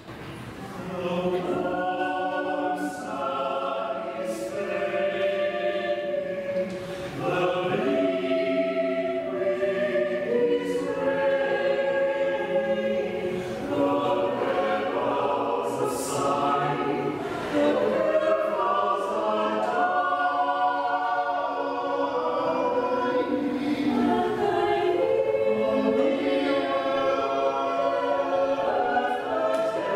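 Small mixed choir singing a slow part-song live, unaccompanied, in several voice parts with held chords that change every second or two.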